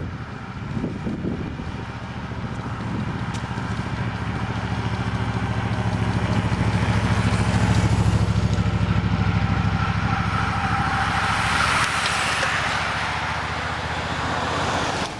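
A motor vehicle's engine runs steadily and grows louder as it draws near, peaking about halfway through. Then a rushing hiss of tyres and air swells as the vehicles and the paceline of road cyclists pass close by, and it cuts off suddenly at the end.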